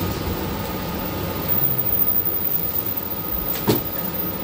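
Steady hum of a city bus cabin at a stop, engine and ventilation running, with a single sharp clunk about three and a half seconds in.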